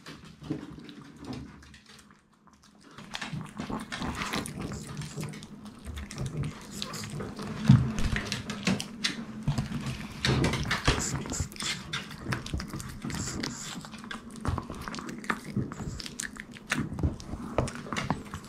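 Maltese dogs chewing and smacking on pieces of sweet potato taken from a hand: a dense run of irregular wet smacks and clicks.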